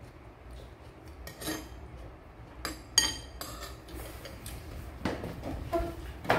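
A metal spoon clinking and scraping against a ceramic bowl, about half a dozen times; the loudest clink, about halfway through, rings briefly.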